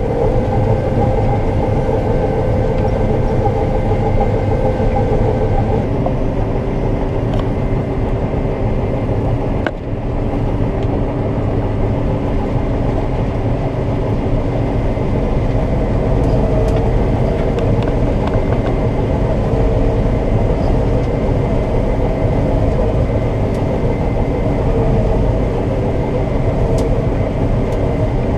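Combine harvester running steadily while harvesting soybeans, heard from inside the cab: a dense machine drone with held whining tones that shift in pitch about six seconds in.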